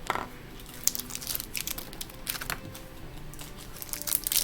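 Doorables blind-pack toy packaging being handled and torn open, crinkling in short irregular bursts.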